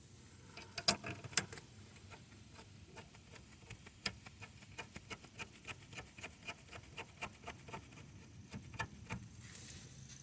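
Metal clicks and knocks from work on a car's rear brake caliper as it is fitted. Two louder knocks come about a second in, then a steady run of small clicks, a few each second, lasting several seconds.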